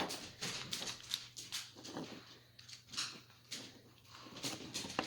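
Small irregular clicks and scrapes of hands working a plastic replacement plug head, fitting the cord into its cable clamp.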